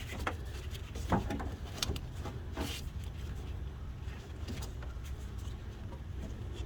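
Rubber heater hose being fed under and rubbed against other hoses in a truck's engine bay, with a few soft knocks and scrapes over a steady low rumble.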